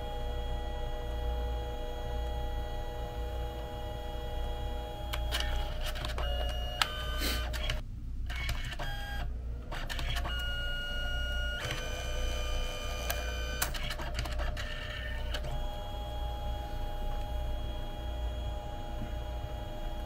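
Canon Selphy CP1300 dye-sublimation photo printer printing: a steady motor whine whose pitch changes several times midway, with two brief breaks and a sharp click, over a low steady hum.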